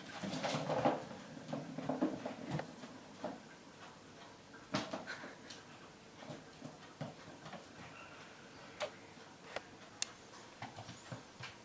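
A golf ball knocked about on a tiled floor by a kitten's paws: scattered sharp clicks and knocks as it strikes the tiles and skirting board, with softer paw scuffling between them.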